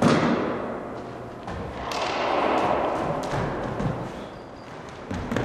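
Athletic shoes thudding and scuffing on a racquetball court floor as a player runs a footwork drill, with a heavy thump right at the start.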